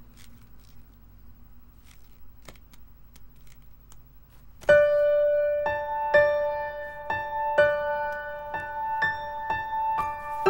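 A few faint clicks in a quiet room, then about four and a half seconds in a soft piano melody begins. It plays single notes at about two a second.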